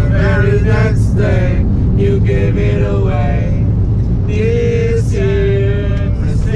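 Singing with long held, chant-like notes, carried over the steady low rumble of a car driving.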